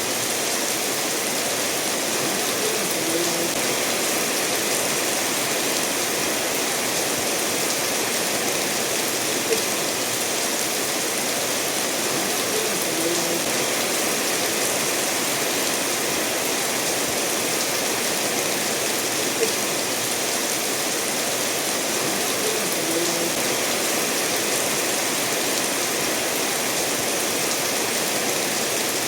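Steady rainfall mixed with a stream running over stones, an even rushing hiss, with a brief soft tick about every ten seconds.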